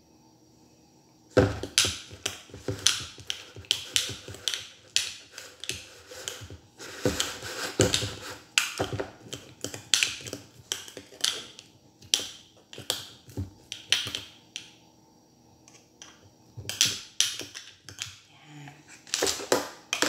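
A spoon clicking and scraping against the inside of a glass jar in quick, irregular strokes as fermenting rice and fish are pressed down to pack them tight. The strokes start about a second and a half in and pause briefly near three quarters of the way through.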